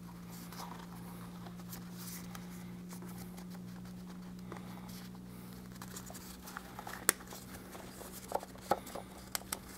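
Gloved hands handling a plastic oil filter housing cap while fitting its new rubber O-ring: faint rustling and a few small clicks, the sharpest about seven seconds in, over a steady low hum.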